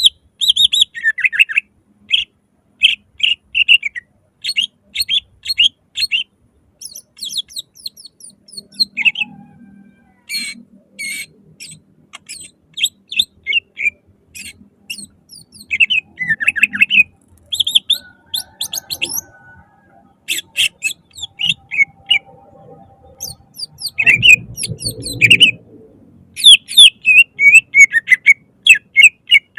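Green leafbird (cucak ijo) singing loudly in rapid runs of sharp, repeated high notes and trills with short breaks between phrases. A brief low rumbling noise comes under the song near the end.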